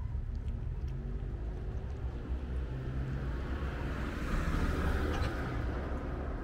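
A car passing on the road: its tyre and engine noise swells to a peak about four to five seconds in, then fades, over a steady low rumble.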